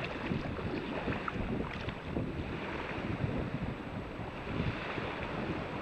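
Wind buffeting the microphone over small sea waves washing around the wading angler's legs and along the beach.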